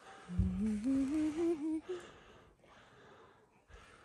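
A person humming a short phrase that climbs in small steps for about a second and a half.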